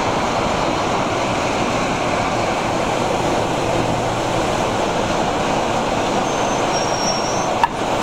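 Diesel-hauled train on the move, heard from an open coach window just behind the locomotive: a steady mix of engine, wheels on rail and rushing air. A single sharp click near the end.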